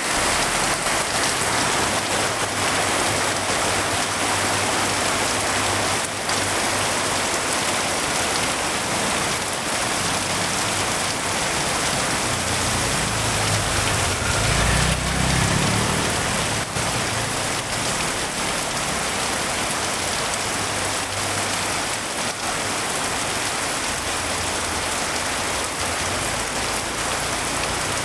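Heavy rain falling steadily. A low rumble swells and fades around the middle.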